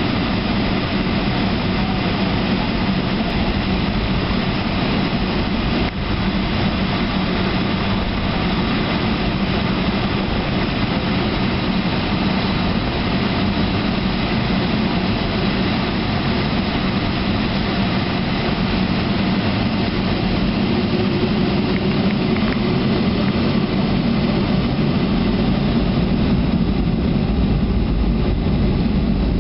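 Jet engines of a Boeing 757-200 running at low power, heard inside the cabin as a steady hum and rush while the airliner taxis. The sound grows slightly louder in the last few seconds.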